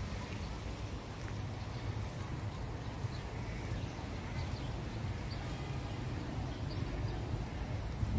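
Steady, high-pitched buzz of insects over a low rumble.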